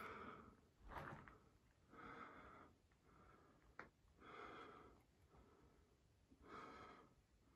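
Faint breathing of a person close to the microphone: a soft breath about every two seconds, five in all, with a single sharp click shortly before the fourth second.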